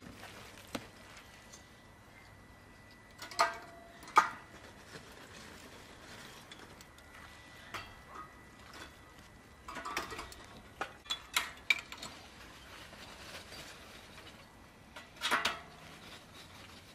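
Kitchen crockery and a spoon clinking against a clay pot and glass bowl: a few short, separate clinks, two close together about three and a half seconds in, a quick cluster around ten to twelve seconds, and another near the end.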